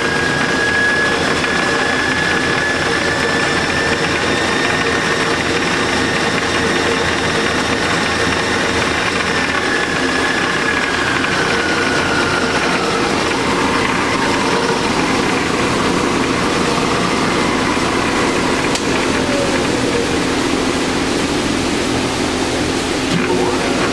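Clausing 5902 precision metal lathe running under its motor, a steady machine hum with a whine that drops in pitch about halfway through as the variable-speed dial is turned down and the spindle slows.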